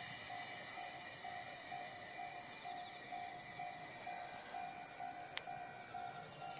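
Railway level-crossing alarm ringing in even pulses, about two a second, over a steady high chirring of insects. A single sharp click about five seconds in.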